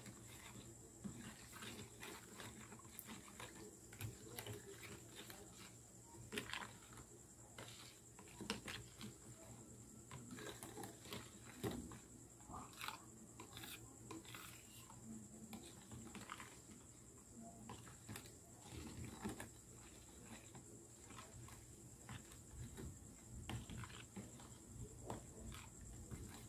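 Metal spoon stirring a thick creamy liquid in a plastic tub: faint, irregular scrapes and light taps of the spoon against the plastic.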